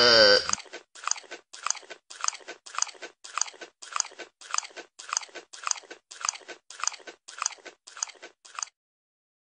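A bleat trails off, falling in pitch. Then crunchy chewing sounds come in an even rhythm, nearly two bites a second, and stop abruptly near the end.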